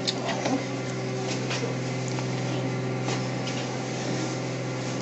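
Steady mechanical hum with several light clicks and taps scattered through it, a few in the first second and more around one and a half and three seconds in.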